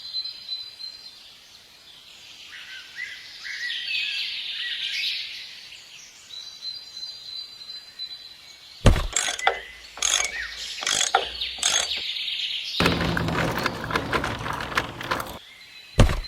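Small birds chirping and whistling, followed by a handful of sharp knocks, a few seconds of rushing noise and one last knock near the end.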